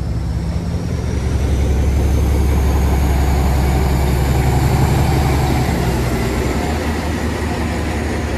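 ZDM-4A narrow-gauge diesel locomotive idling: a steady low engine rumble that grows louder through the middle and eases toward the end.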